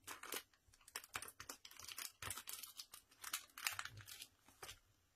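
Plastic packaging crinkling and crackling in quick irregular bursts as a packet of glitter tubes is handled, stopping shortly before the end.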